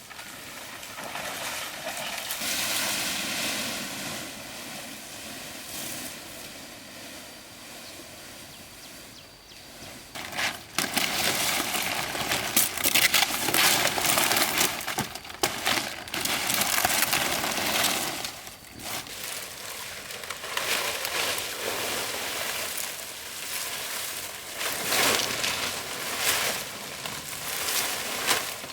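Irregular rustling and crackling of dry material being handled, louder and busier from about ten seconds in.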